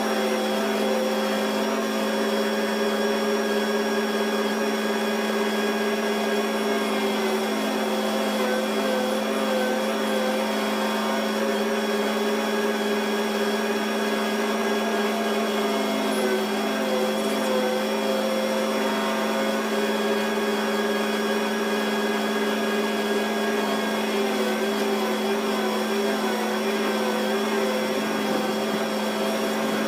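Tractor-driven farm feed machinery running steadily: a constant engine drone with a strong steady hum, its pitch wobbling slightly every several seconds.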